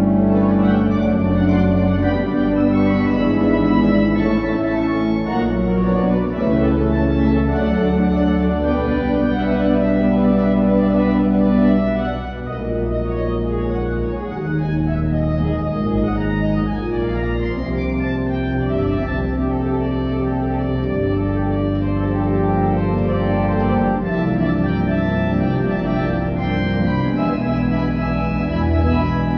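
Pipe organ played on manuals and pedals: full held chords over a deep pedal bass, with a short drop in volume about twelve seconds in.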